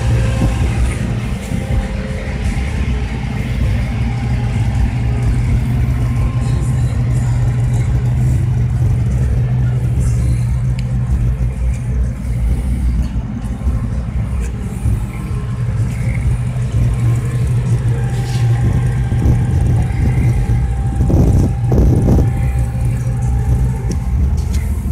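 1962 Chevrolet Impala SS convertible's engine running with a steady deep exhaust rumble.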